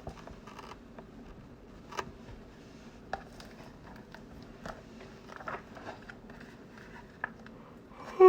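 Faint handling noise from a picture book being held and its pages handled: soft rustling with scattered small clicks and taps.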